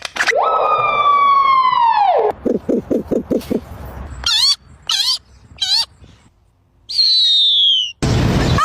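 A series of different wild calls, most likely birds, one after another. First comes a long whistle that slides down in pitch, then about six quick low hoots. Then three short warbling calls, and near the end a higher whistle that falls.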